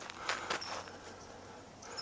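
A couple of footsteps crunching on a dirt mountain trail, with short high bird chirps, one just after the steps and one near the end.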